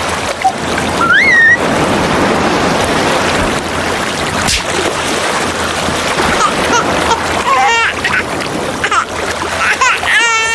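Splashing, rushing water noise, with a short rising squeal about a second in and wavering, squeaky cries near the end.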